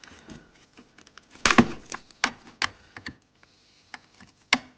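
Sharp clicks and knocks of a screwdriver and hands working at the screws that hold a bread maker's gearbox and motor, with small plastic and metal parts being handled. The loudest cluster of clicks comes about a second and a half in, and single sharp clicks follow a little later and near the end.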